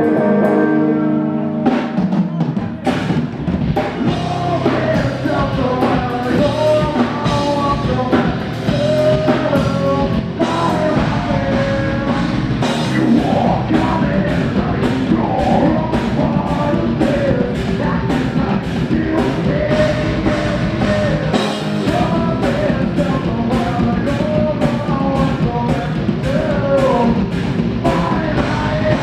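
Live rock band playing loudly through a club PA, heard from the crowd: drum kit, guitars and a singer on microphone. A ringing chord opens, and the full band kicks in about two seconds in with a steady drum beat.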